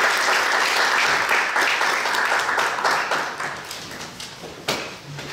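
Audience applause that thins out and fades over the last two seconds, with one sharp knock near the end.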